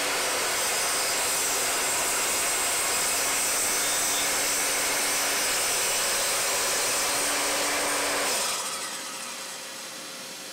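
Evolution R255SMS sliding mitre saw running and cutting through plywood with a 60-tooth Freud blade fitted on a reducing ring. The steady motor and cutting noise falls away sharply about eight seconds in, leaving a lower hiss.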